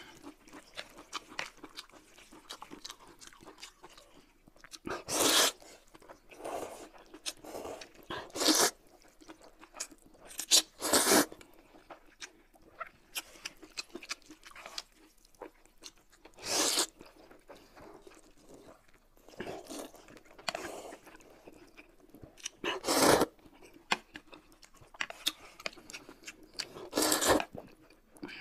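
Close-up eating sounds of two people eating noodles: about six loud slurps a few seconds apart, with soft chewing and small wet clicks between them.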